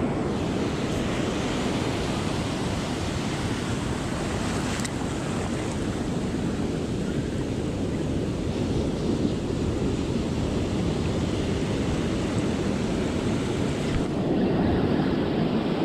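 Ocean surf breaking and washing up the beach in a steady rush, with wind on the microphone, a little louder near the end.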